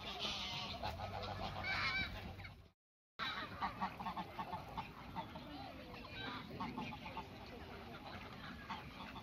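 Geese honking, with several loud calls in the first couple of seconds. After a brief cut to silence about three seconds in, a flock of flamingos and ducks calls on and off, many short overlapping calls.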